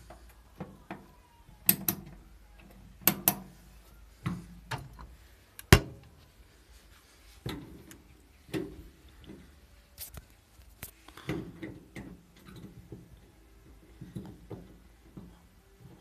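Irregular clicks and knocks from hands working a tumble dryer's door and cabinet, with the loudest strikes about two, three and six seconds in.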